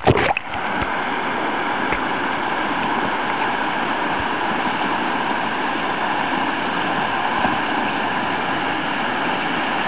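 Whitewater rushing steadily through a foaming river standing wave, a loud, even roar of water. A short click and dropout right at the start.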